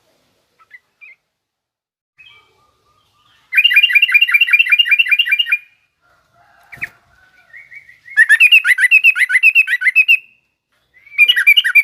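Yellow-vented bulbul (trucukan) giving its rough, rapid chattering song, three runs of quickly repeated notes about two seconds each. There is a single sharp click between the first and second runs.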